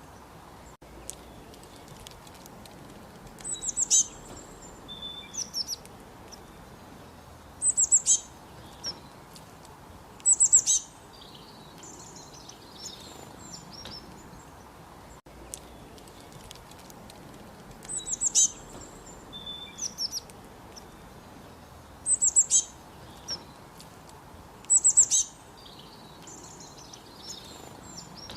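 Songbirds singing: short, bright, high-pitched chirping phrases every few seconds over a steady background hiss.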